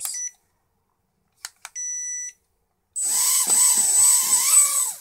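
A short electronic beep, two clicks and a second steady beep as the nano quadcopter is switched on. About three seconds in, its four tiny motors and propellers spin up with a high whine and buzz for about two seconds, then cut off suddenly, as the quadcopter makes a short hop.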